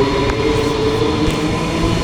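Queensland Rail NGR electric train, a steady rumble with a held whine.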